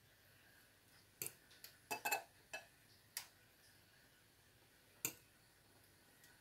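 Metal spoon clinking and tapping against a bowl as it moves palitaw rice cakes in water: several light clicks in short clusters from about one second to five seconds in, the loudest around two seconds in.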